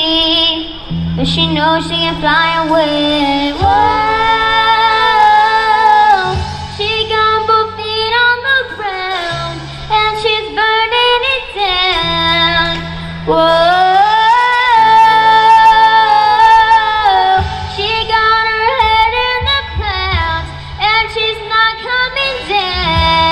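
A girl singing lead into a microphone over a live amplified rock band, with steady sustained bass notes under the melody.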